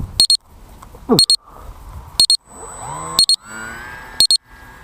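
An electronic alarm beeps in short high double beeps about once a second. Under it a whine rises in pitch between two and four seconds in, like the model plane's electric motor being throttled up.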